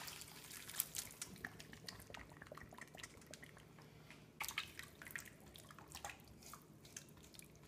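Faint, irregular drips of stock falling from a stainless steel colander of strained vegetables into a pot of stock, a little busier about halfway through.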